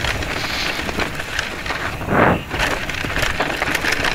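Electric mountain bike riding down a snowy trail: a continuous rush of tyres on snow and wind on the microphone, broken by clicks and knocks from the bike over roots and stones, with a louder rush about two seconds in.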